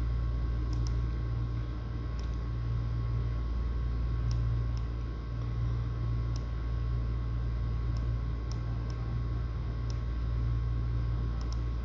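Steady low hum of background noise, with faint scattered ticks, about ten, spread irregularly through it.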